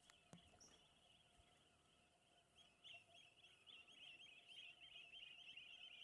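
Faint, rapid bird chattering: a run of quick high notes that starts a little under halfway in and goes on, over a faint steady high background drone.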